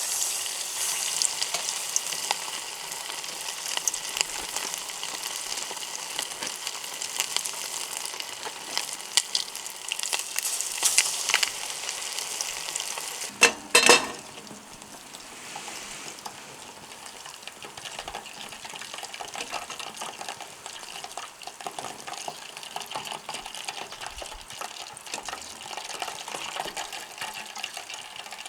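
Food sizzling and spitting as it fries in a hot pan, with two loud clattering knocks about halfway through, after which the sizzle is quieter.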